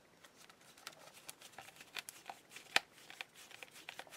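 Faint clicks and light scraping of a hand screwdriver turning a screw into the plastic housing of a cordless screwdriver, with one sharper click about two-thirds of the way in.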